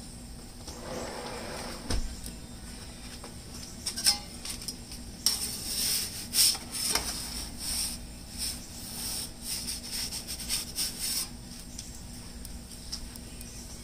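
Metal pizza turning peel clinking and scraping against the stone floor and metal mouth of a pizza oven as the pizza is turned: a busy run of clicks and scrapes from about four to eleven seconds in, after a single knock about two seconds in.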